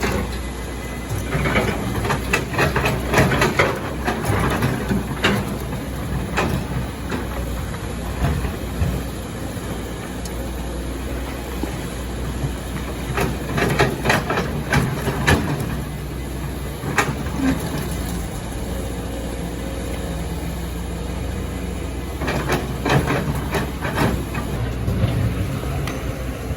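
Excavator's diesel engine running steadily, with three spells of clattering and scraping of rock and sand: about a second in, around the middle, and near the end.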